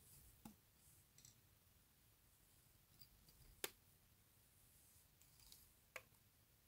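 Near silence broken by three faint, sharp clicks from fingers handling latex strip and thread on a hook in a fly-tying vise: one about half a second in, the loudest in the middle, one near the end.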